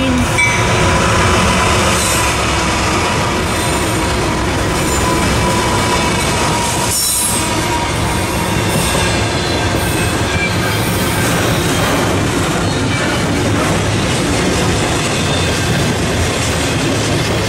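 Freight train passing close by: diesel locomotives go by first, then double-stack container cars rolling past. Steady heavy rumble of wheels on rail, with clatter and some high wheel squeal.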